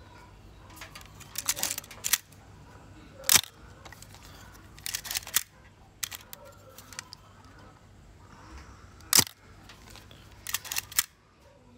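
Miranda Automex III camera's shutter being test-fired twice, each a single sharp click, with short runs of smaller mechanical clicks from handling the camera, winding on and setting the speed dial, between the shots.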